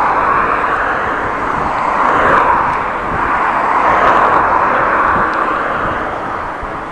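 Rushing wind and road noise on an action camera's microphone during a bicycle ride, steady with swells about two and a half and four seconds in.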